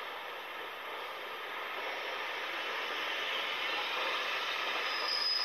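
Passenger train running into the platform, its rumble and rail noise growing steadily louder, with a high steady wheel squeal starting near the end.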